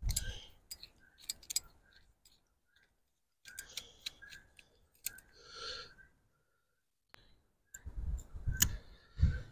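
Scattered light clicks and ticks of a jumper wire and its clip being handled and fitted at a tractor's ignition wiring, with a few dull bumps near the end.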